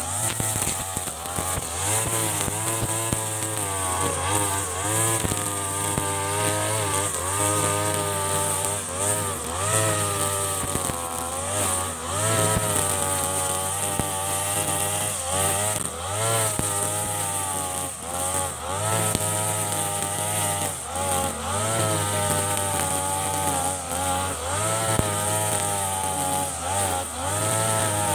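Mitsubishi TU33 two-stroke backpack brush cutter running at high revs while cutting tall grass; its engine note dips and recovers every second or two as the cutting head bites into the grass. A steady high whine sits above the engine note.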